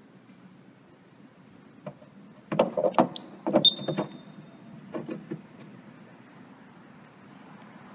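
Clicks and knocks of a plastic prototype tire-valve finder being pushed by hand into the access hole of a Cirrus aircraft's wheel fairing, loudest in a quick cluster about two and a half to four seconds in, with a short high-pitched tone near the middle and a few lighter knocks after.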